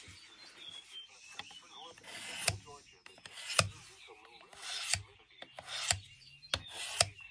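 Steel pocket-knife blade drawn in repeated strokes across the plate of a Work Sharp guided field sharpener, honing the edge to take off the burr. The strokes are short scraping rasps, faint at first and louder from about two seconds in, roughly one a second.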